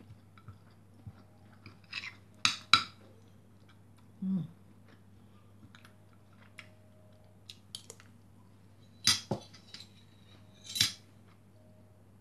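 Metal spoon and fork clinking and scraping against a ceramic plate while scooping fried rice. The sharp clinks come a couple of seconds in and twice more near the end.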